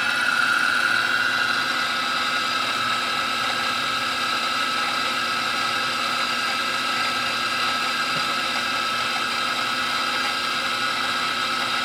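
Milling machine running steadily with a steady whine, its cutter taking light passes in metal to mill out a firearm's guide rod housing. It is a little louder for the first second or two.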